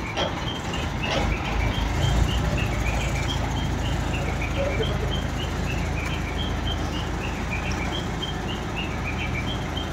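A heavy vehicle engine, most likely the mobile crane holding the load, idling with a steady low rumble. Over it comes a run of short, high chirps that repeat two or three times a second.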